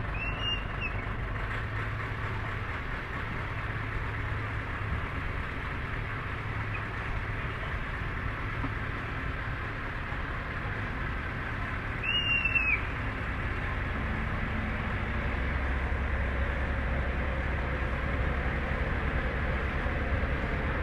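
Sailboat's inboard engine running steadily at low speed with a low rumble that grows stronger about fifteen seconds in. Two short high-pitched cries cut across it, a faint one near the start and a louder one about twelve seconds in.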